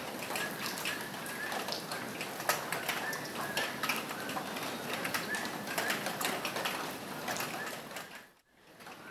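Steady rain falling on a roof, with many separate drops tapping sharply through the hiss. About eight seconds in the sound dips almost to silence for a moment, then returns.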